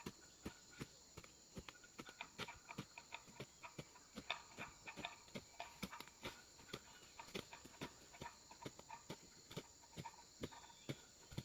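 Faint, irregular light clicks and taps, a few a second, over a steady high hiss.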